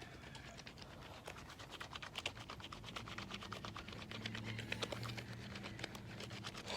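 A wet, soapy shoelace being scrubbed between the palms, making a rapid scratchy rubbing.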